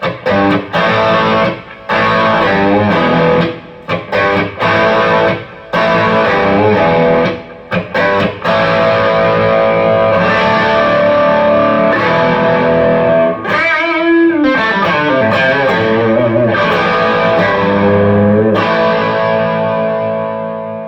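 Electric guitar played through effects with some distortion: choppy stop-start chords with short breaks, then held notes, a wavering bend in pitch about two-thirds of the way in, and a final chord left ringing that fades out.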